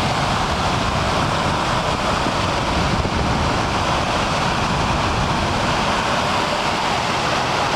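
Interior heater blower motor from a VW Gol/Parati/Saveiro without air conditioning, running steadily on test with a constant rush of air from its fan, working properly.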